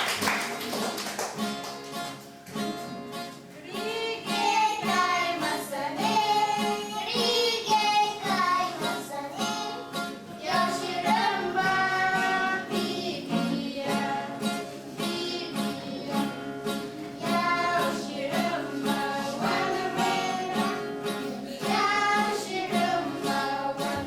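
Singing with a strummed acoustic guitar accompaniment: a song with a steady strummed rhythm under a melody.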